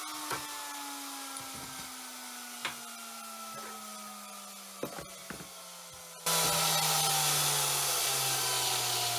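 The router's motor spinning down after being switched off, its whine falling slowly and steadily in pitch, with a few sharp knocks as a hold-down clamp is set on the wooden board. About six seconds in, a steady hiss cuts in suddenly.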